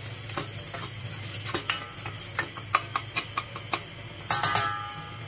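A spoon stirring diced onion in a stainless steel saucepan, clicking and scraping against the pan at irregular moments, with a brief cluster of ringing knocks near the end.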